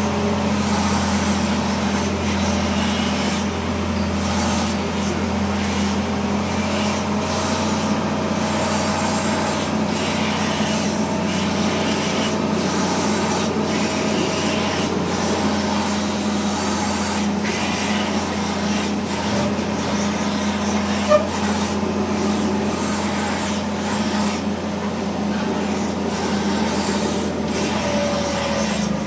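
Pushback tug's engine running steadily under load as it pushes a Boeing 777-300ER backwards, heard from inside the tug's cab: a constant hum over a rushing noise. A single short click about two-thirds of the way through.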